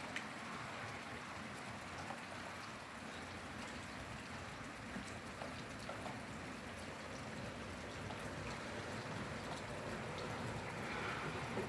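Steady rainfall, an even hiss with scattered drops ticking on a surface, swelling slightly near the end.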